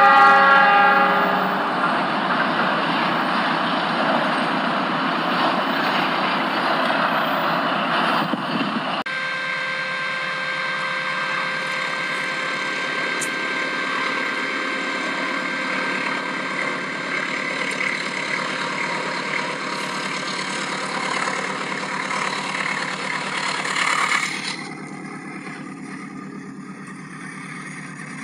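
Passing train: its horn sounds until about a second and a half in, then the train runs on with a steady rumble and rattle. The sound changes abruptly about nine seconds in to a steadier running noise with a few held tones, and drops off about 24 seconds in.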